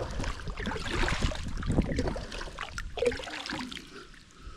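Kayak paddle strokes: water trickling and dripping off the paddle blades and splashing as they dip, growing quieter near the end.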